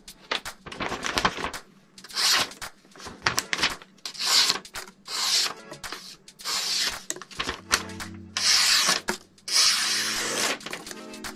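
The 9Cr18MoV stainless blade of a Krudo DAO folding knife slicing through a sheet of paper: about eight dry, hissing cuts, each lasting up to a second, with light paper rustles and clicks in between. It is a paper-cutting test of the blade's sharpness.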